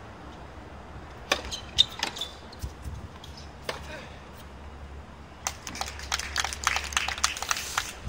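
Tennis ball struck by rackets during a rally on an outdoor hard court: a series of sharp pops, the loudest about two seconds in. In the last few seconds comes a quicker run of sharp clicks.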